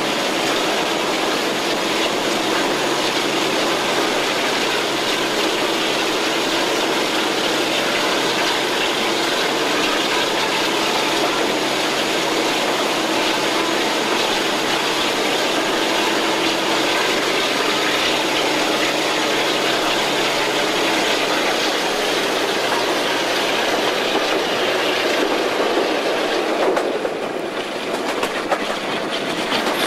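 Diesel-hydraulic locomotive and its train running through a tunnel, heard from an open window of the train: a steady engine drone over the rush of wheels on rail. Near the end the train leaves the tunnel and the sound drops and thins.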